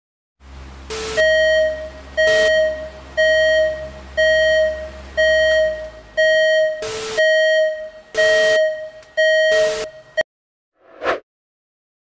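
Error-alarm sound effect: a mid-pitched electronic beep repeating about once a second, about nine times, cut through by short bursts of digital static over a low hum. It is the synthetic warning sound of a glitching error screen, and ends with a brief whoosh of noise.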